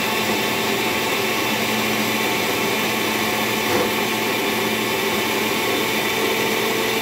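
Electric mixer grinder running steadily at full speed, its steel jar grinding mustard seeds and peanuts with water into a wet paste. Its tone shifts slightly about six seconds in.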